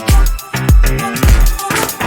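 Background electronic music with a heavy, steady bass-drum beat, about two kicks a second.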